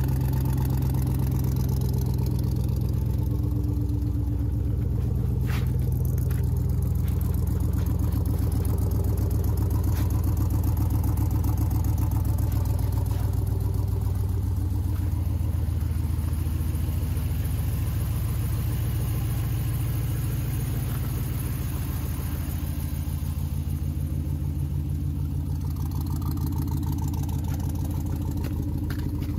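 The pickup's swapped-in 2006 GM L59 5.3-litre V8 idling steadily through a leaky exhaust, with a few light clicks over it.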